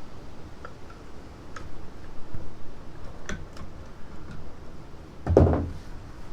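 Scattered clicks and light metallic clinks of hand tools and bolts while the stator cover bolts come off the engine, with one louder clunk about five seconds in.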